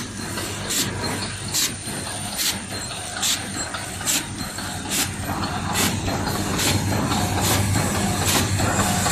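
Detergent-powder sachet packing machine running: a steady motor hum under a sharp, hissy stroke repeating evenly, a little more than once a second, with each packing cycle.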